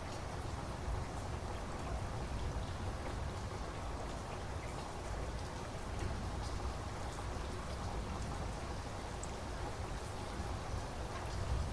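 Steady rain falling, an even hiss with a low rumble underneath and faint ticks of single drops scattered through it.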